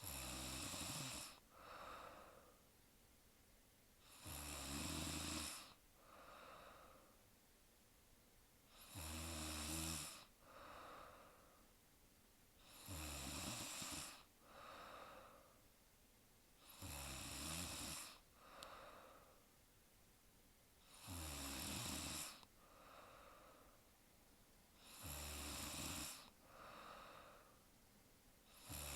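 A woman snoring in deep sleep: a rattling snore on each in-breath, each followed by a softer breath out, repeating steadily about every four seconds.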